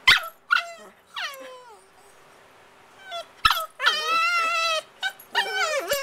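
Cavalier King Charles Spaniel puppies making play noises: three short, high-pitched yelps that fall in pitch in the first two seconds, then a long whine about four seconds in, followed by more yips.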